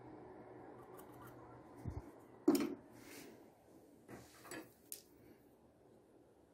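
Handling noise on a workbench: a soft low thump, then a sharp knock about two and a half seconds in, followed by three lighter knocks with some rubbing.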